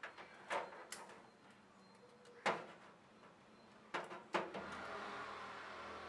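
Knocks and clatters of a microwave oven and its power cord being handled during unboxing, the loudest about two and a half seconds in and two more close together near four seconds; then a steady hiss.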